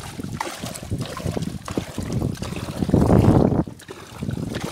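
Wind buffeting the microphone over water lapping against a paddled wooden outrigger boat, with scattered small knocks and the loudest gust about three seconds in.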